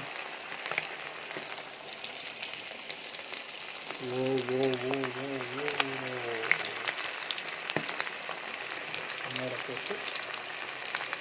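Batter-coated chicken pieces deep-frying in hot oil: a steady crackling sizzle dotted with sharp pops. A brief wavering voice-like tone sounds about four seconds in.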